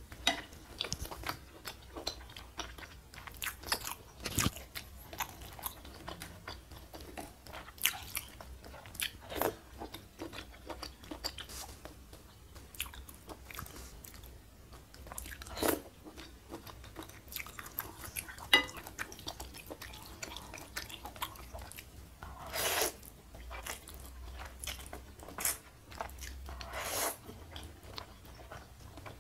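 Close-miked mouth sounds of a person eating spicy noodle soup: wet chewing and smacking in many short clicks, with a few longer sucking bursts as noodles are slurped, one near the end.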